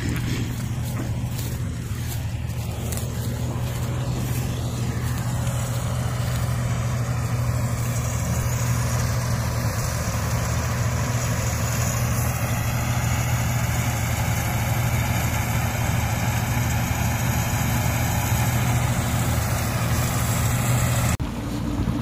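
Combine harvester running steadily while cutting and threshing wheat: a constant engine hum with the hiss of the cutter and threshing drum over it. About a second before the end the hiss drops away.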